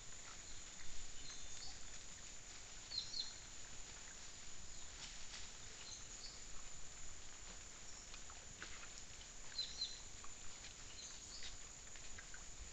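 Peccaries foraging in dry leaf litter: scattered faint rustles and clicks of rooting and steps, with a few short high chirps, over a steady hiss and a thin high tone.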